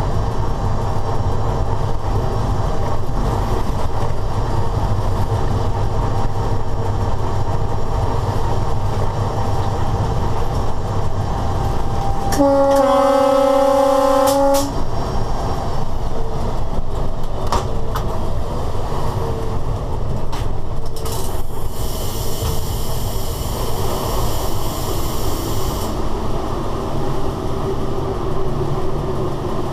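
Electric locomotive running at speed, heard inside the driver's cab: a steady rumble of wheels and running gear. About halfway through the horn sounds one blast of a little over two seconds. Later a high hiss comes in for about five seconds.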